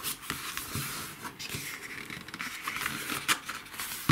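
Pages of a glossy paper booklet being leafed through by hand: a paper rustle with a few light ticks as the pages turn.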